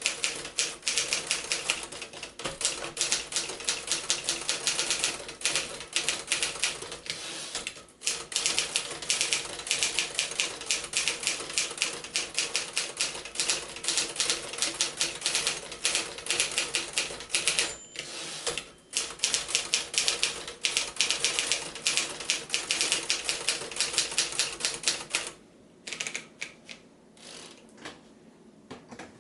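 1956 Remington Letter-Riter manual typewriter being typed on at speed: a fast, dense run of key strikes with two short pauses. The typing stops near the end, leaving only a few scattered clicks.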